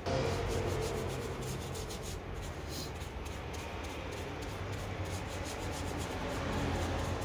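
A stiff brush scrubbing back and forth on a car tyre's rubber sidewall, working black repair compound into a crack in repeated scratchy strokes, over a steady low hum.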